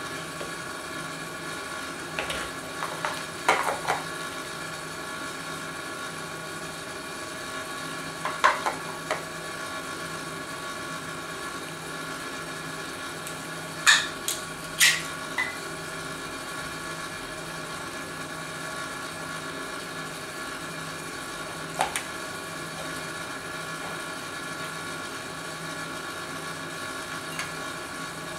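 Steady machine hum with a few scattered sharp clicks and knocks as plastic pet bowls and a can of cat food are handled on a hard floor; the loudest clicks come about halfway through.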